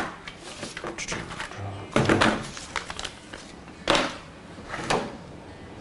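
A few short knocks and scuffs of a plastic toy blaster being handled, about a second apart, with a sharp click at the start.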